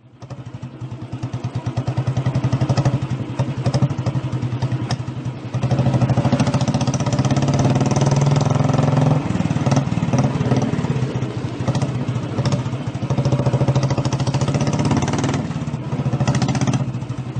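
Motorcycle engine running with a fast, even pulse, getting louder at times as it is revved.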